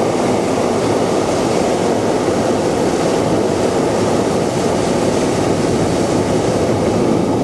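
Hot-air balloon's propane burner firing in one long, steady, loud rushing blast.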